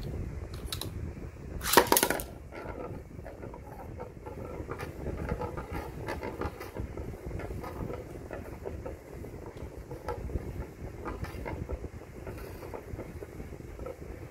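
Beyblade Mercury Anubis 85XF launched into a homemade stadium's clear dish, landing with a loud burst about two seconds in. It then spins on the dish with a steady noise and scattered light ticks.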